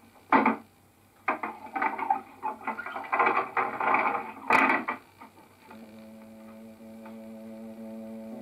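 A sharp knock, then a run of clattering, rattling knocks and thuds with a last loud crack just before the halfway-to-end point; after that a low held music chord comes in and sustains.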